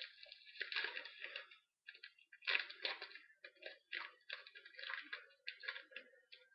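Faint, irregular crinkling and rustling of a foil trading-card pack wrapper and cards being handled, in uneven bursts with brief pauses.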